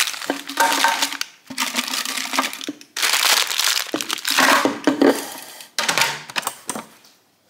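Plastic-wrapped muesli and nut bars crinkling as they are packed by hand into a clear plastic storage canister, in several rustling bursts with light clicks of the bars against the container, fading out near the end.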